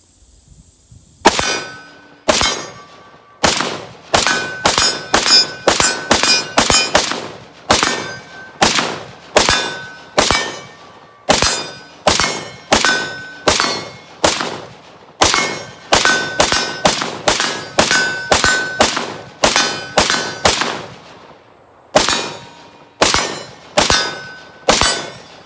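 PSA PA10 .308 AR-10 pistol fired semi-automatically in a long, rapid string of shots, one to three a second, each sharp report followed by a brief ring, with a short break about 21 seconds in. It is shooting steel-case Tula ammunition with no failure to fire or jam.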